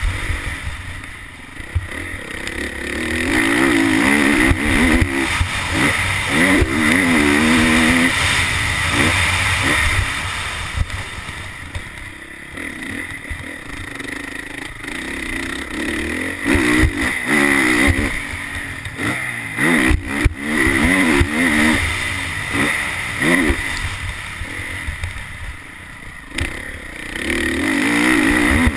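Honda CRF450R motocross bike's single-cylinder four-stroke engine revving hard and dropping off as the rider opens and rolls off the throttle around the track. The pitch rises and falls repeatedly, with brief quieter spells when the throttle is closed.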